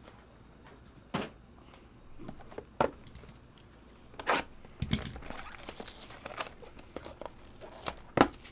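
Trading-card packaging being handled: a plastic pack wrapper crinkles and tears, with several sharp clicks and snaps and a longer rustle about midway.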